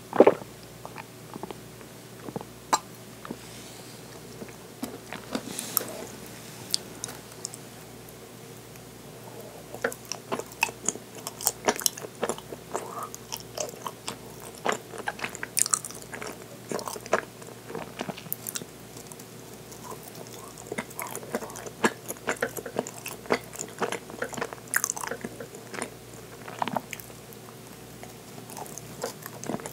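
Close-up chewing of soft, sticky mitarashi dango (glazed rice dumplings), heard as many small mouth clicks: sparse at first, then dense from about ten seconds in. A single loud knock comes right at the start.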